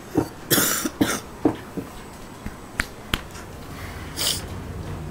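A person coughing a couple of times, followed by two sharp clicks and a short breathy hiss.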